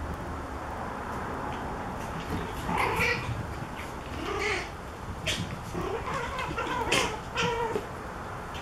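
Eight-week-old Pomeranian puppies yipping and whining as they play, in three spells of short high calls, with a few sharp clicks among them.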